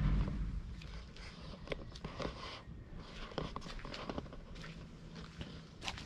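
Footsteps of someone walking on stone paving: an irregular run of light taps and scuffs over a low, steady rumble.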